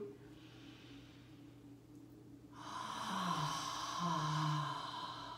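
A woman breathes in quietly, then sighs out loud through an open mouth: a long breathy exhale of about two seconds with a low voiced tone that falls in pitch. It is a deliberate sigh used to release tension in the body.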